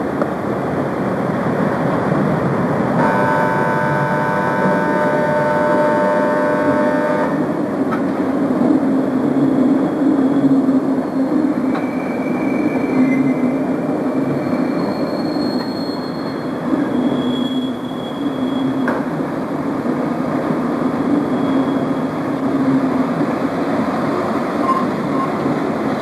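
Electric locomotive-hauled trains running over station tracks: a steady rumble of wheels and rolling noise. About three seconds in, a sustained chord of several steady tones sounds for about four seconds and cuts off, and a few brief high-pitched squeals follow in the middle.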